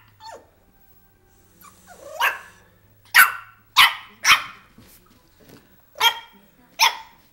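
Nine-week-old Boston terrier puppy barking in play: about six short, high barks, three of them in quick succession around the middle.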